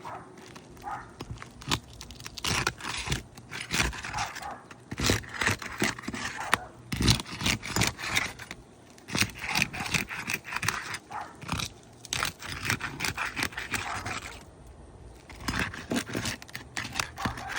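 Roof snake being worked under 3-tab asphalt shingles to break their seal strips loose. It scrapes and clicks in irregular spurts of strokes with short pauses between them.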